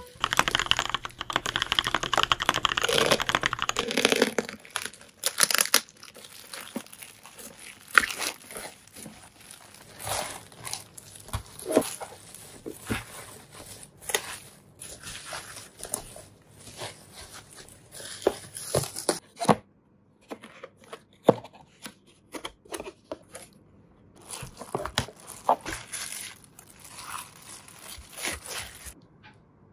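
Plastic packaging and bubble wrap being handled and unwrapped by hand, crinkling and rustling. A dense tearing rustle fills the first few seconds, then the sound breaks into scattered crinkles and small clicks.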